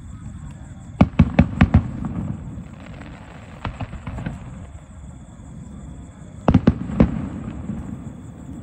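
Fireworks display: aerial shells bursting, with a quick cluster of sharp bangs about a second in and another around six and a half seconds in. Lighter pops are scattered between, over a continuous low rumble.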